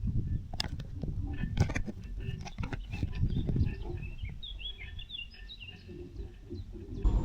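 Low rumble with a run of sharp clicks and knocks, then a few short bird chirps about four to five seconds in.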